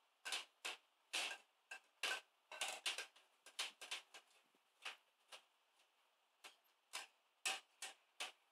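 Plastic baby bottle banged down onto a shelf by a baby's hand: about twenty irregular sharp knocks, some in quick pairs or clusters, with uneven gaps between them.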